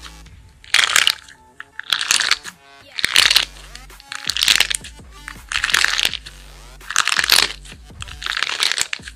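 Crunchy squishing from a mesh squishy ball packed with jelly beads, squeezed hard by hand about seven times, roughly once a second. Soft background music plays underneath.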